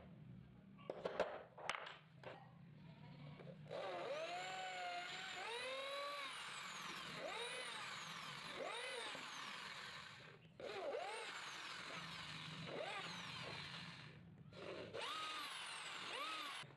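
Bosch electric drill boring small screw holes into the wooden body of a hand plane, its motor speed sweeping up and down again and again. It pauses briefly twice, about ten and fourteen seconds in. Before the drilling starts there are a few knocks and clicks.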